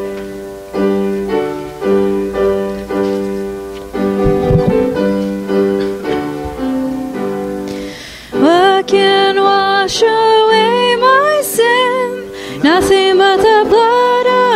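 Piano plays a hymn introduction in slow chords, each one struck and then fading. A little past halfway, singing voices come in over the piano with the hymn melody.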